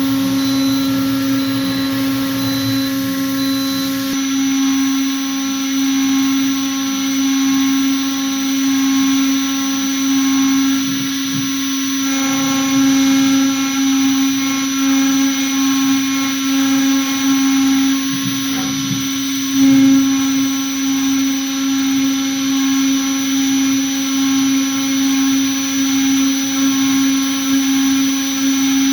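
CNC router spindle running with a steady whine, with small changes in the machining noise now and then and a brief louder moment about two-thirds of the way through.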